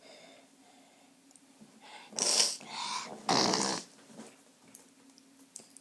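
Two loud puffs of breath close to the microphone, each about half a second long and about a second apart.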